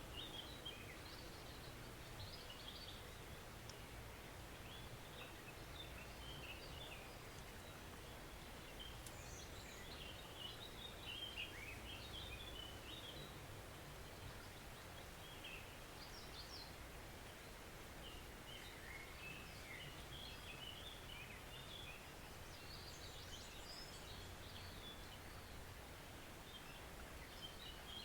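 Small woodland stream running with a steady, gentle rush, while songbirds chirp in short scattered bursts throughout.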